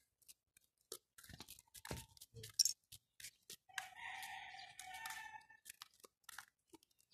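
A rooster crowing faintly: one crow of about a second and a half near the middle, with a short break in it, over scattered light footsteps on pavement.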